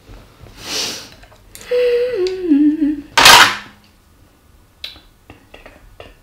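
A person hums a drawn-out 'mmm' that steps down in pitch, framed by two breathy exhales, the second short and loud. Small clicks of a knife and fork on a plate follow as food is cut.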